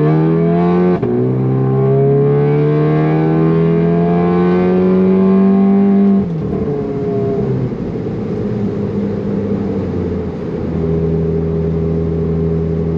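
Turbocharged four-cylinder of a 2017 VW Alltrack with an AWE Touring cat-back exhaust, IS38 turbo and downpipe, accelerating hard. The pitch steps down at an upshift about a second in, then climbs steadily for about five seconds. The throttle is then lifted and the engine settles to a steady cruise near the end.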